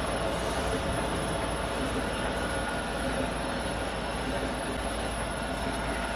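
Brush sanding machine for door and cabinet panels running: a steady mechanical rumble and hiss, with a faint steady high whine.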